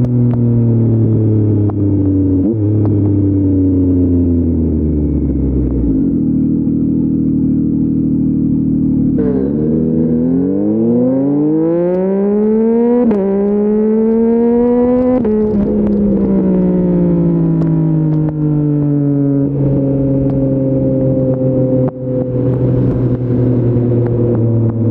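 Yamaha MT-09's 890 cc inline three-cylinder engine through an Akrapovic full-system exhaust, heard from on the bike. Its revs fall away as the bike slows, then about nine seconds in it accelerates hard, the pitch rising through two quick upshifts before dropping back to a steady cruise.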